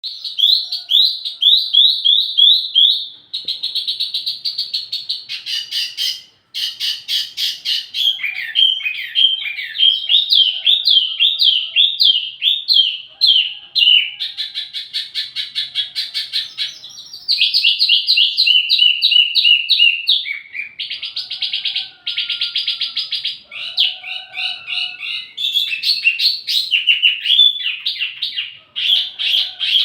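Wambi mini songbird singing non-stop: fast runs of repeated high chirps and trills that change from phrase to phrase, with a few buzzy rattling stretches. It is a master song used to train and lure tledekan birds.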